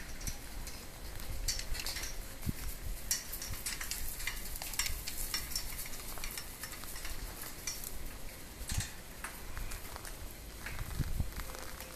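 Irregular crackling and crunching over dry grass and dead leaves, many small scattered ticks, with a steady low rumble underneath.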